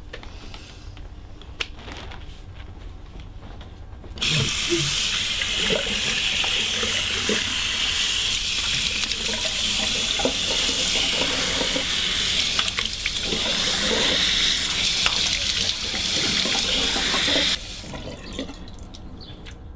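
Bathroom tap running water into a sink: a steady rush that starts suddenly about four seconds in and stops suddenly near the end.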